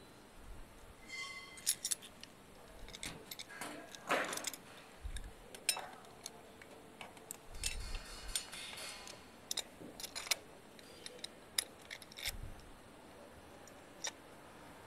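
Black end cap being pushed and turned by hand onto the top of a stainless steel reverse osmosis membrane housing: irregular clicks, clinks and short scrapes of plastic against metal.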